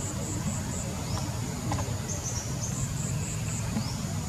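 Insects calling outdoors: short high-pitched chirps repeating in groups of three or four, over a steady low rumble.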